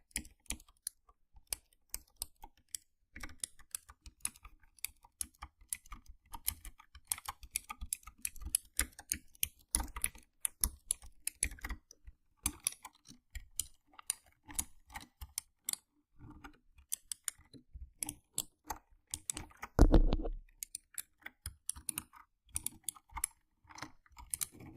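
Mechanical keyboard keys clicking in irregular bursts of typing, with brief pauses. About 20 s in there is one louder, deeper thump.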